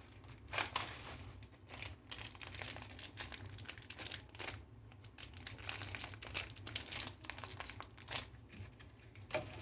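Plastic crinkling and rustling as it is handled and folded, a run of quick irregular crackles.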